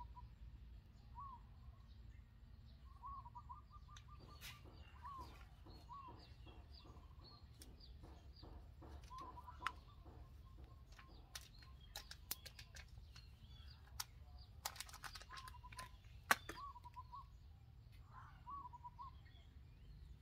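A bird calling over and over in short, high, arching chirps. Scattered sharp light clicks and taps come in between, the loudest about ten and sixteen seconds in, with a faint low rumble underneath.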